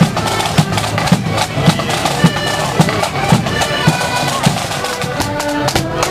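Marching band playing a march tune over a steady low drone, with a drum beating about twice a second.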